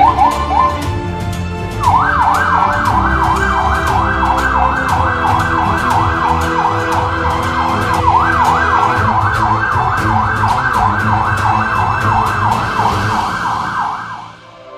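Police escort car's electronic siren in yelp mode, sweeping rapidly up and down several times a second. It gives a couple of short whoops, then runs steadily from about two seconds in and fades away near the end, over background music.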